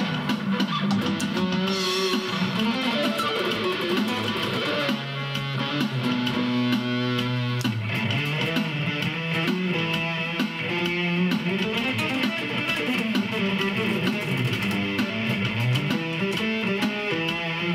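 Steel-string acoustic guitar played through a Zoom G1 Four effects pedal into a Roland Cube-10 amp on its JC Clean setting with a touch of reverb, picking a continuous run of single notes and chords, with a few held low notes in the middle.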